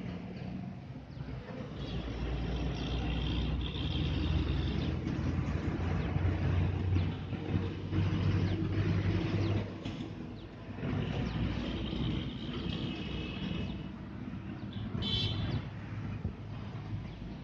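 Steady low rumble of road traffic, with a short high-pitched sound about fifteen seconds in.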